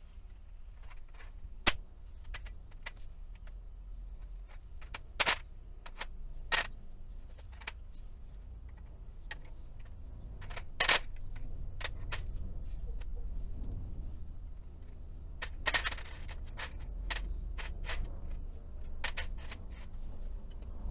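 Irregular sharp metallic clinks and knocks as freshly cast lead ingots are knocked and tipped out of their mold trays onto a steel sheet, a few hits much louder than the rest. A steady low rumble runs underneath.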